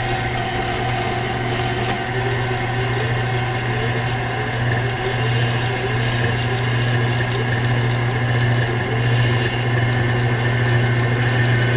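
KitchenAid stand mixer motor running steadily, driving its shredder attachment as it grinds chilled blocks of Monterey Jack cheese into shreds.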